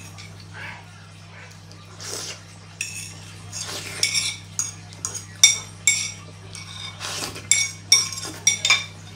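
Metal fork clinking and scraping against a ceramic plate many times, quickening in the second half, as the last of the food is scraped up, with a few slurps from the edge of the plate.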